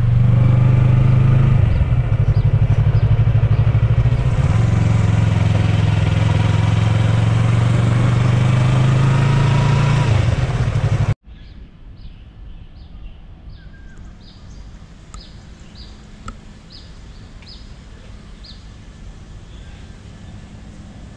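Motorcycle engine running under way, its note dipping briefly about two and four and a half seconds in. It cuts off abruptly about halfway through and gives way to a much quieter background with faint, evenly spaced clicks.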